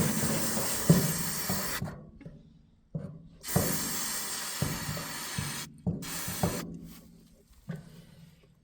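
Aerosol brake cleaner sprayed onto a combine's fuel filter in three hissing bursts, a long one at the start, another of about two seconds midway and a short one after it, with knocks of the part being handled in between.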